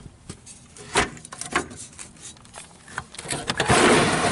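Slatted roll-up compartment door on a fire engine being opened: a few sharp clicks, then a loud noisy rush as the door rolls up near the end.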